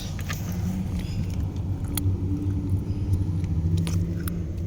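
Car engine idling with a steady low rumble, with a few light clicks over it.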